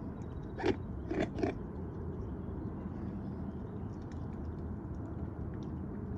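Mute swans and cygnets feeding at the water's edge: three brief bill sounds of dabbling and pecking in the first second and a half, over a steady low background rumble.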